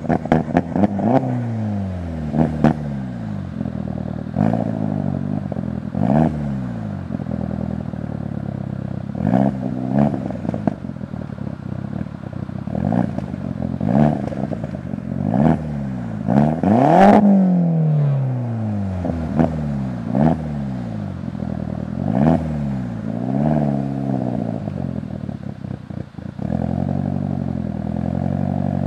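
Turbocharged 1.8-litre four-cylinder engine of a VW GTI, heard through a 3-inch turboback exhaust with a high-flow cat, revved in a dozen or so quick throttle blips. Each rev climbs sharply and falls back, the highest about halfway through. Near the end it settles into a steady, even note.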